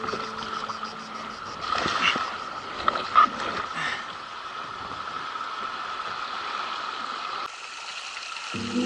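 River water running past a canoe, with a couple of brief splashes a few seconds in. Background music fades out at the start and comes back in near the end.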